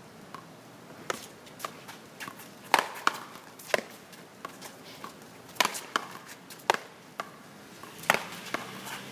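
Paddleball rally: about a dozen sharp, irregularly spaced smacks of solid paddles hitting the ball and the ball striking the concrete wall and court.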